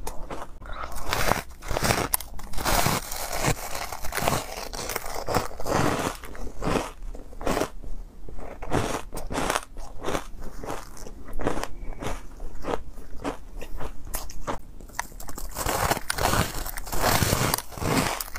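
Close-miked bites and chewing of a block of refrozen powdery ice coated in matcha powder: a dense run of sharp, irregular crunches and crackles as the ice breaks between the teeth.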